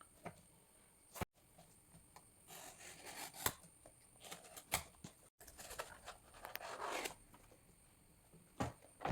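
Packaging being handled and opened: rustling, rubbing and tearing, with scattered sharp clicks and taps.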